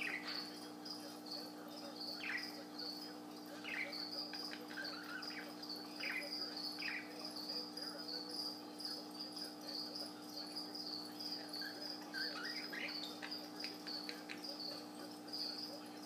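Budgie giving soft, short falling chirps every few seconds, over a steady high-pitched pulsing trill.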